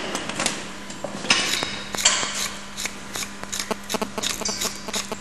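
Hoof-trimming tools scraping and cutting at a cow's cloven hoof: a quick, irregular run of sharp clicks and rasping scrapes, with a faint steady hum underneath.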